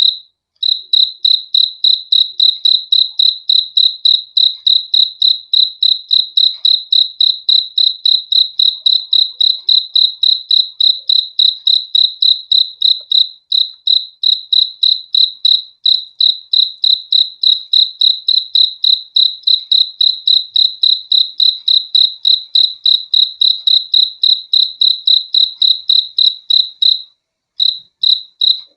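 A single cricket chirping close and steadily: a clear, high, pure-toned chirp repeated about four times a second. There are brief breaks about halfway through and a pause of about a second near the end.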